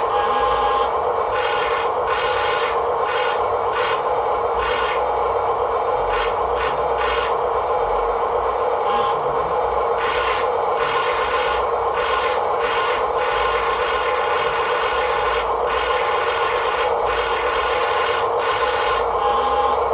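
A small motor running with a steady whine, with irregular bursts of scraping and rubbing over it.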